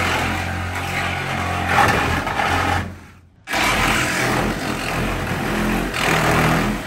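Cordless reciprocating saw cutting through an aircraft fuselage's riveted aluminum skin and frame. It runs loudly, cuts out for about half a second around three seconds in, then runs again and trails off at the end.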